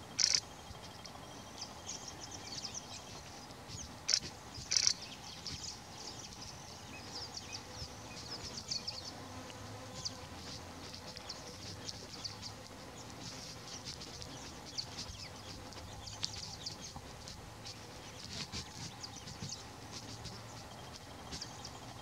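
Outdoor ambience of high-pitched insect and small-bird chirping, a dense, irregular twitter throughout. A few louder short chirps or rustles stand out near the start and again about four and five seconds in.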